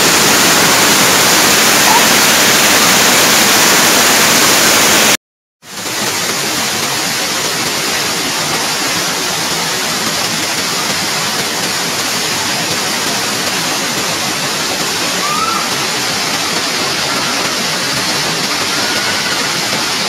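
Steady, loud rush of a waterfall pouring over rock. The sound cuts out completely for a moment about five seconds in, then resumes slightly quieter.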